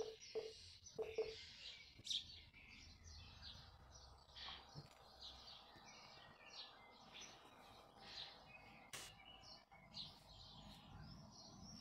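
Faint birdsong of several short chirps in a quiet room. In the first second or so a watercolour brush gives a few quick taps and dabs in a plastic palette well as paint is mixed. A single sharp click comes about nine seconds in.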